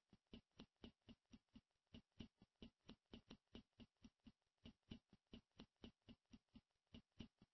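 Near silence with a faint, fast, even ticking, several ticks a second.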